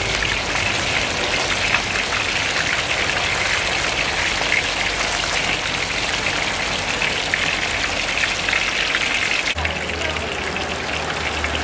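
Whole jelawat and red tilapia deep-frying in hot oil in a steel wok, a steady, dense sizzle and crackle as the fish fry toward half-crisp.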